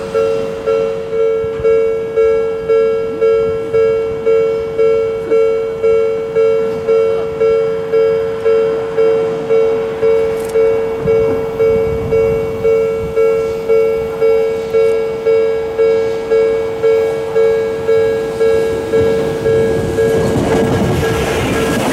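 Japanese level-crossing warning bell ringing its steady two-tone "kan-kan", about three strikes every two seconds, each fading before the next: the crossing is closed for an approaching train. Near the end, the rumble of an Odakyu commuter train passing through the crossing rises under the bell.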